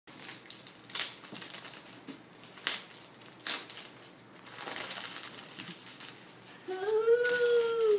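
Foil gift wrap crinkling and tearing as a child rips it off a box, in sharp separate rustles. Near the end comes one long, drawn-out vocal sound from a child that rises and then falls.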